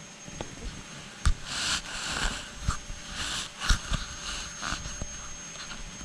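Close-up handling noise on a moving camera: irregular short puffs of hissing noise right at the microphone, with a sharp knock about a second in and another after three and a half seconds.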